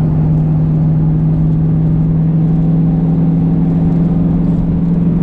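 Car engine droning steadily at constant revs while cruising at freeway speed, with tyre and road rumble heard from inside the car.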